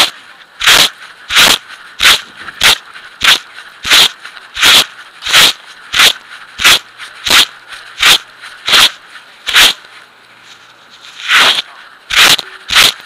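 Dog panting heavily right over the microphone of a camera strapped under its chest: loud, regular breaths about one and a half a second, breaking off for about a second around ten seconds in.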